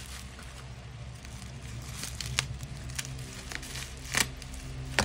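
Plastic packaging being handled and unwrapped, crinkling and rustling, with a few sharp clicks and taps spread through it.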